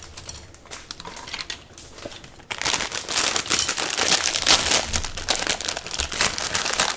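Plastic instant-noodle packet crinkling as it is handled. About two and a half seconds in it turns to loud, dense crinkling as the packet is pulled open.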